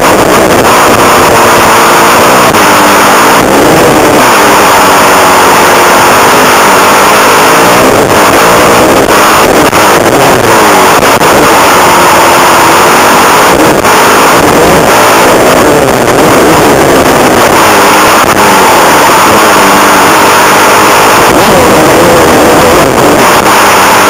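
Suzuki motocross bike's engine revving up and down as it is ridden hard around a dirt track, the pitch climbing and dropping every second or two with throttle and gear changes. The recording is overloaded, loud and distorted.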